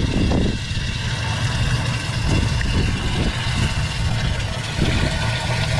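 Water from a hose running steadily into a boat's live well, over a steady low rumble.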